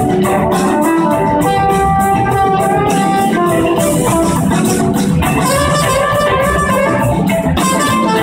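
Live band playing loud: electric guitars, bass and drums, with a lead line of long held, bending notes on top, heard from the audience.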